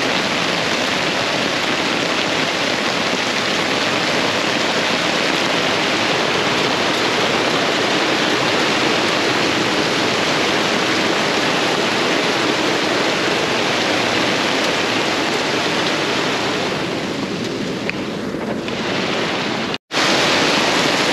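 Heavy rain pouring down in a dense, steady hiss. It eases slightly shortly before the end, then cuts out abruptly for an instant and comes back.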